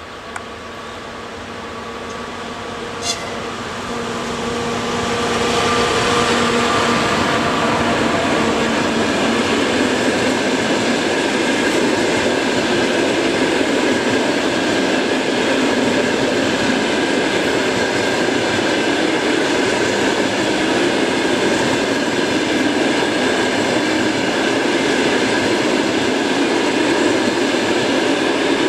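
ChS4T electric locomotive approaching with a steady hum, growing louder until it passes about five seconds in. Then the passenger coaches roll by with a loud, steady rumble of wheels on the rails. There is a sharp click about three seconds in.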